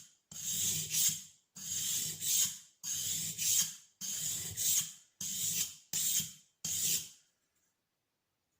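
Steel spokeshave blade being rubbed back and forth on a dry sharpening stone: about seven gritty scraping strokes, each swelling and fading, getting shorter and quicker before stopping about seven seconds in.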